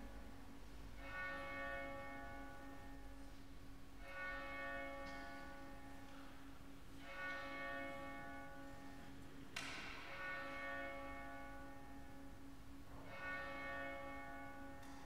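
Quiet organ music: soft held chords, each starting afresh about every three seconds over a sustained low note, in a reverberant church. A sharp click sounds once about ten seconds in.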